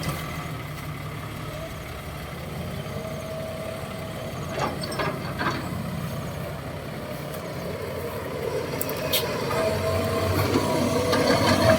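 Six-wheel dump truck's engine running, growing louder over the last few seconds, with a few brief clicks about halfway through.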